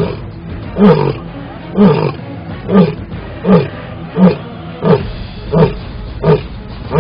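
Asiatic lion roaring: a series of short, deep grunts, each dropping in pitch, about nine in all, coming a little quicker as the series goes on.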